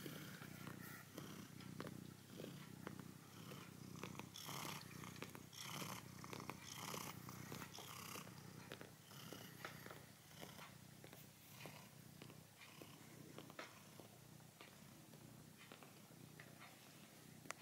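Domestic cat purring steadily and softly while kneading a plush toy, with brief soft rustles of paws working the plush and fabric, most of them in the first half.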